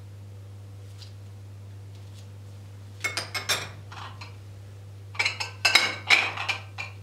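A metal spoon clinking and clattering against a small dish as it is put down, in two quick clusters of knocks about two seconds apart, over a low steady hum.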